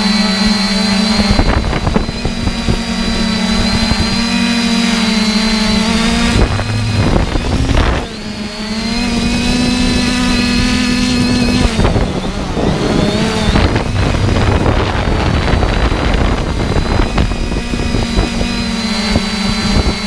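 Multirotor drone's electric motors and propellers humming close to the microphone. The pitch shifts up and down as the throttle changes, dipping about a third of the way in, and rough wind noise on the microphone runs under it.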